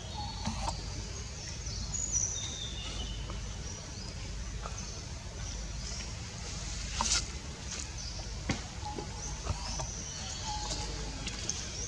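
Outdoor ambience with a steady low rumble, scattered short high-pitched animal chirps, and a few sharp clicks or snaps, the loudest a little past the middle.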